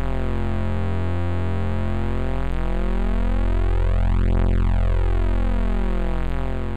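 Thick, sustained synthesizer drone from a demo soundtrack: many pitches slowly slide up and down against one another with a shimmering beat, then it begins to fade near the end.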